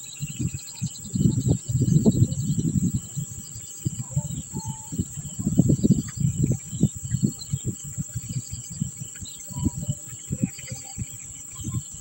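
A steady high insect drone runs under irregular low rumbles and thumps, the loudest sound, with faint scattered bird chirps.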